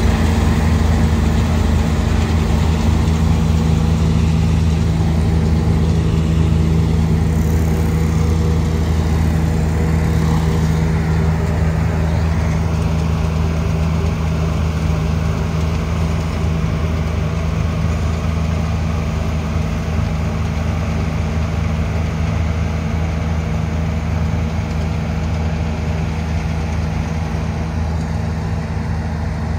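New Holland combine harvester's diesel engine running steadily under load while it harvests wheat, with a low even hum. The sound fades slowly toward the end as the combine moves away.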